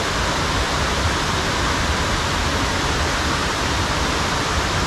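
Steady, even rushing of falling water, as from a dam outlet or a heavy downpour.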